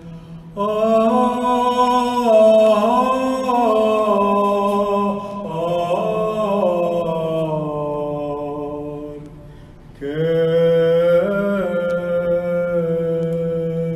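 A man's voice chanting solo Armenian Church liturgy into a microphone: two long phrases of slow, held notes, with a short break about ten seconds in.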